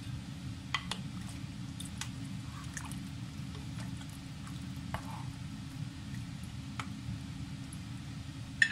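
Black plastic spatula stirring chicken broth in a nonstick pot: liquid sloshing, with a few scattered clicks of the spatula against the pot. A steady low hum runs underneath.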